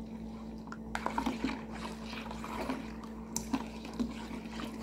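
Thin stream of water pouring from a jug into a plastic basin of foamy detergent mixture, trickling faintly, with a few light clicks from a plastic spoon stirring. The water is being added slowly to thicken homemade liquid laundry soap.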